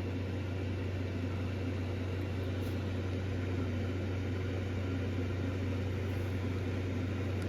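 Steady low hum with an even hiss under it, unchanging throughout: room background noise from a running machine such as a fan or appliance.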